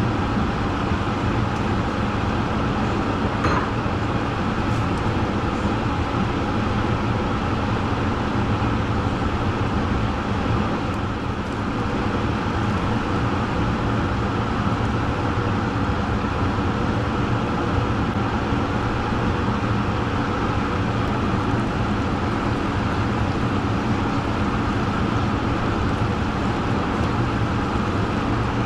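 A vehicle engine running steadily, with no change in speed or load.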